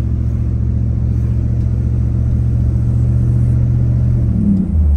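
1977 Oldsmobile Toronado's V8 engine running with a steady low rumble, heard from inside the cabin, its note dropping lower and swelling briefly near the end. The muffler has a small hole in it.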